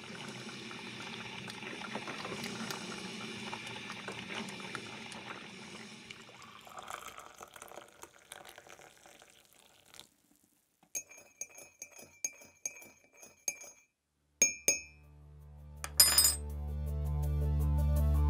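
Coffee being poured into a mug, fading out after several seconds, then a spoon clinking against the cup several times. Near the end a low music swell rises in volume as the show's intro music begins.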